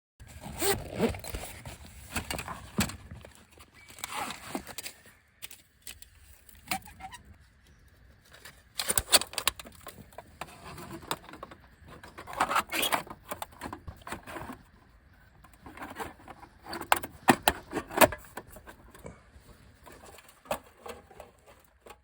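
Camping gear being handled by hand: irregular rustling with sharp knocks and light metallic clinks, coming in several short clusters.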